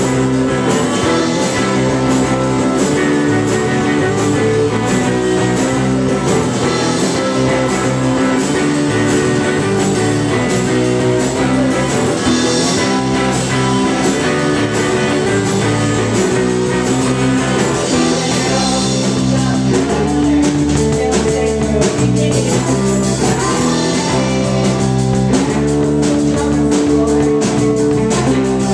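Small indie rock band playing live: electric guitar, electric bass and drum kit, with singing at the microphones.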